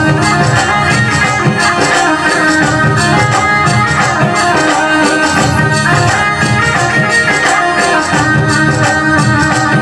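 Instrumental passage of live Rajasthani folk devotional music: a sustained melody over steady jingling percussion like a tambourine.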